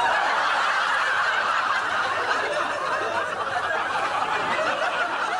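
Studio audience laughing: a long, dense wave of crowd laughter that breaks out suddenly and eases off slightly near the end.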